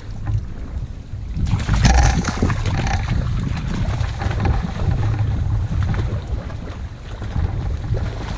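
Strong wind buffeting the microphone, a steady low rumble that swells into a louder gust about one and a half seconds in.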